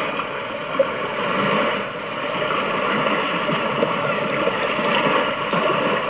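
Small waves lapping and washing in shallow sea water: a steady rushing noise.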